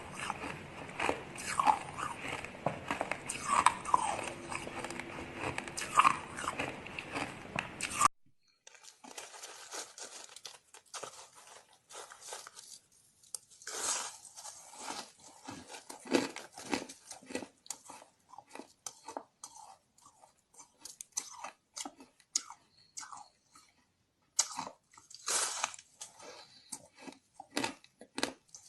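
Ice being bitten and crunched between the teeth and chewed, close to the microphone, in a run of short cracking crunches. About eight seconds in the background hiss drops away abruptly, and the crunches after it come sparser and quieter, with louder bursts of chewing now and then.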